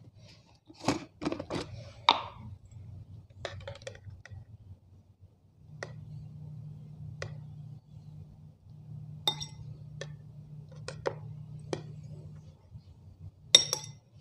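Screw lid of a plastic jar twisted open with a quick cluster of clicks, then a fork clicking against the plastic jar now and then while pieces of rambutan salad are picked out.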